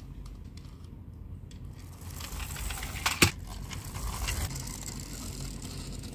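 A die-cast toy climbing car being handled and rolled by hand: small plastic-and-metal clicks and rattles from its body and wheels, with one sharp click about three seconds in.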